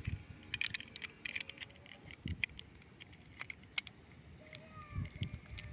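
Light clicks and crinkles of small plastic toy packaging and pieces being handled, in an irregular cluster early on and then a few single ticks.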